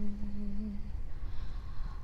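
A person's voice humming one steady held note, with no words; it stops about a second in, leaving a low rumbling noise.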